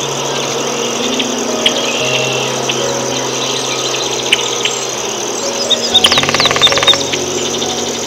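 A steady low engine hum with scattered high chirps. About six seconds in comes a rapid rattle lasting about a second, topped by sliding high notes; it is the loudest sound.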